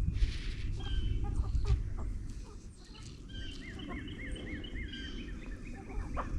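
Chickens clucking over a low rumble, with a run of about five short, high chirping notes in the middle.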